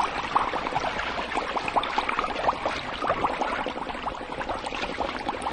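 Aquarium water bubbling steadily, a dense stream of small bubbles popping and gurgling.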